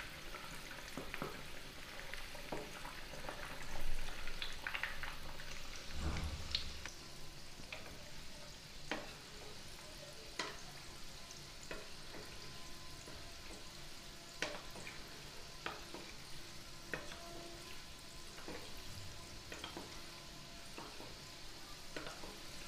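Batter-coated cutlets deep-frying in hot oil in a kadhai over a medium flame, on their way to golden: a steady sizzle with scattered sharp pops, while a wooden spatula stirs through the oil.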